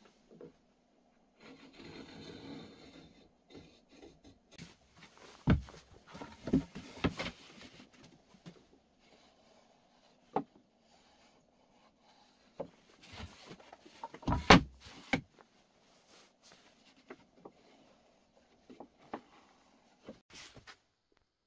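Wooden marking gauge scraping along the edge of a pine board, then a run of knocks and clatter as the boards and gauge are handled on the workbench, the loudest cluster about fourteen seconds in.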